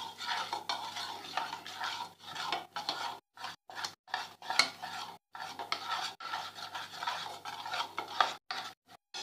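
A spoon stirring yogurt and ground spices together in a bowl, scraping against the bowl in irregular strokes with brief pauses.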